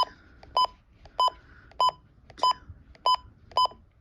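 Midland weather alert radio giving short electronic beeps as its buttons are pressed to set the alarm time, about seven evenly spaced beeps, each a single high tone.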